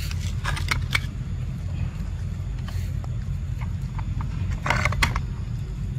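Dry leaves and loose tile fragments crackling and clicking as a baby monkey scrabbles through them, over a steady low rumble, with the densest burst of crackles about five seconds in.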